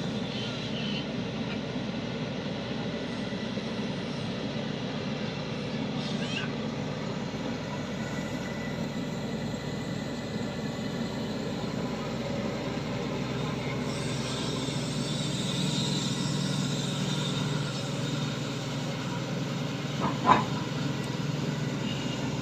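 Shantui excavator's diesel engine running steadily under load while it digs, swelling slightly in the middle, with one short sharp knock about 20 seconds in.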